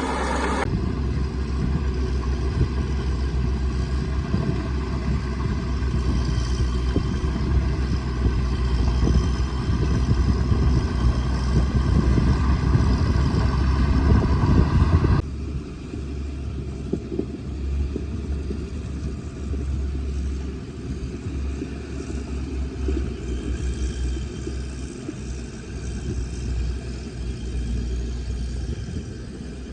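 Caterpillar bulldozer's diesel engine working under load, with its sound low and heavy. It builds slightly over the first half, then drops abruptly to a lower, uneven running level about halfway through.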